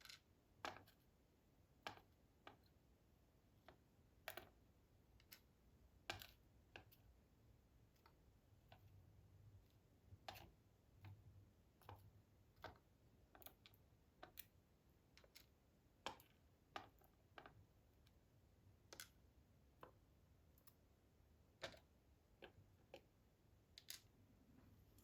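Faint, irregular small metal clicks of driver pins and springs dropping out of an ASSA D12 lock cylinder and being handled, a few ticks every couple of seconds, some sharper than others.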